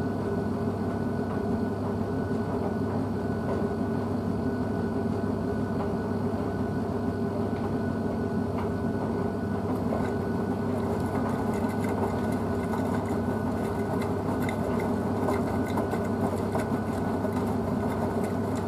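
Blomberg WNF9448 front-loading washing machine tumbling its load during the conditioner rinse: a steady motor hum as the drum turns, with water and clothes sloshing. From about halfway there are light irregular ticks.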